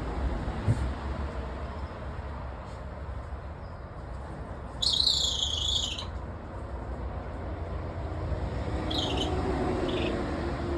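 Golden eagle giving a high, screeching call a little over a second long about five seconds in, then two shorter calls near the end, over a steady low rumble.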